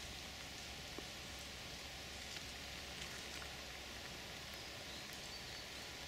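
Quiet woodland ambience: a faint steady hiss with a few soft ticks.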